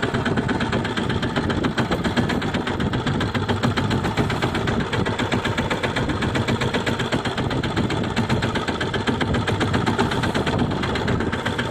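Fishing boat's engine running steadily with an even, rapid firing rhythm.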